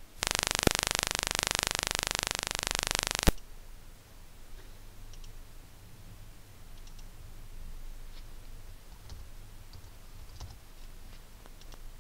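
A loud burst of static-like hiss that starts and stops abruptly and lasts about three seconds, followed by faint, scattered computer mouse clicks.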